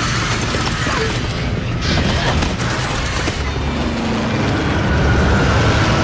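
Film sound effects of a flock of crows pelting a turboprop transport plane: a dense, rapid hail of bird strikes against the airframe over the steady noise of its engines.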